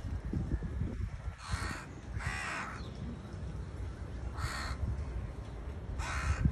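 House crows cawing: four harsh caws spread a second or two apart, over a low rumble.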